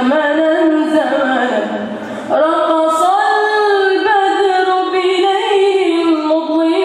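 A boy's unbroken voice singing an Arabic nasheed solo, with no instruments: ornamented, winding lines, a brief breath about two seconds in, then a long, wavering held note.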